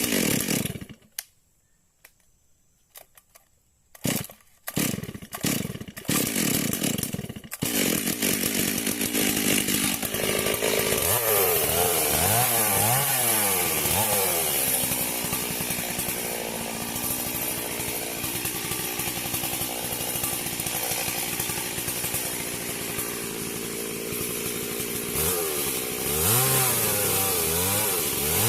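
Stihl MS 382 two-stroke chainsaw, sounding in short separate bursts for the first several seconds, then running continuously from about seven seconds in. It revs up and down several times, with a long steady stretch at high speed in the middle.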